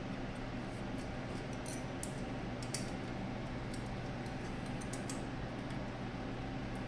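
Steady low electrical hum, with scattered light metallic clicks and clinks from small tools and parts being handled, the sharpest a little under three seconds in.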